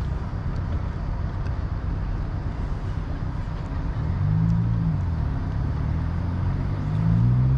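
A steady low rumble, joined about halfway through by an engine's drone that passes close, rising and shifting in pitch as it goes.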